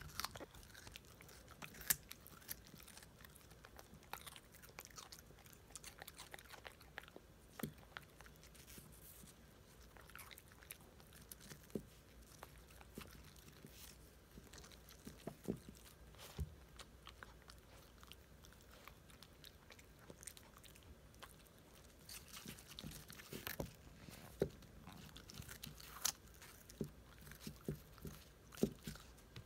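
A schnauzer crunching and chewing pieces of raw radish, in irregular crisp crunches that come more often near the end.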